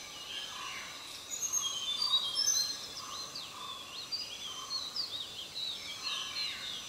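Several birds chirping and whistling over one another, with quick rising and falling notes and a shorter lower note repeating about once a second. The chorus is busiest and loudest between about one and three seconds in, over a steady background hiss.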